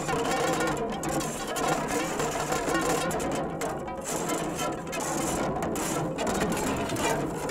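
Electro Tumbleweed, an invented sound sculpture of seven carbon fiber rods on a 3D-printed PLA core, being played: a continuous, dense scraping texture with a fluttering grain.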